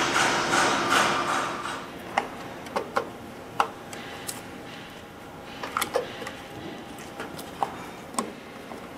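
Hand work on a stainless-steel control cabinet: a rubbing, scraping noise for the first couple of seconds, then scattered small clicks and taps of a screwdriver and switch parts against the metal panel. A faint steady whine sits underneath from about four seconds in.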